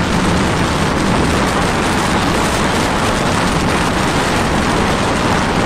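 Strong wind rushing over the microphone above a rough, whitecapped sea, a loud steady rumble with no letup.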